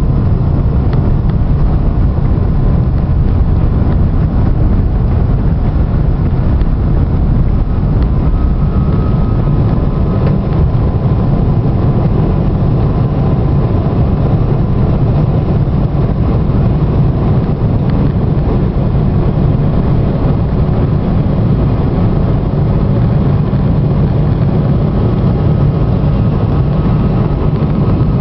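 Boeing 777-300ER's GE90-115B engines at takeoff thrust, heard inside the cabin over the wing: a loud, steady rumble through the takeoff run and into the initial climb, with a faint steady whine over it.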